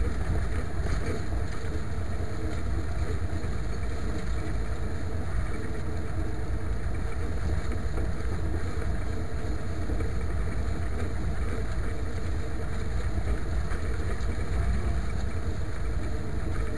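IMT 539 tractor's three-cylinder diesel engine running steadily while pulling a harrow through a sown wheat field.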